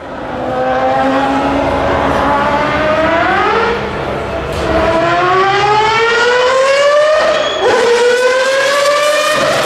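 Mazda 787B's four-rotor R26B Wankel rotary engine, loud, accelerating hard through the gears. Its pitch climbs steadily and drops back at upshifts about four and seven and a half seconds in.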